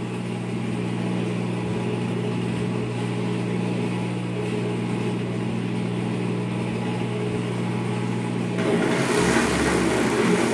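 Overlock (serger) machine with a steady low motor hum. About eight and a half seconds in, the machine starts sewing, a louder, brighter whirr of the stitching mechanism, as a shoulder seam of knit fabric is fed through.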